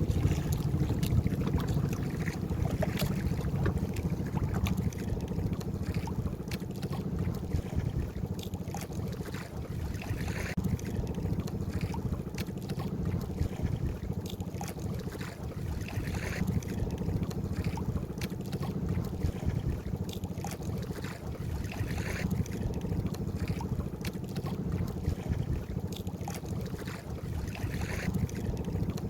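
Wind buffeting the microphone in a steady low rumble on a small fishing boat at sea, with water slapping against the hull in short splashes every few seconds.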